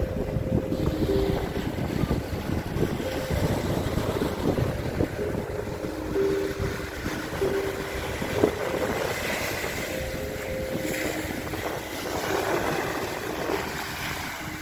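Wind buffeting the microphone over the wash of small waves breaking and running up a sandy beach; the fizz of the surf swells about two-thirds of the way through. Short steady hums come and go now and then.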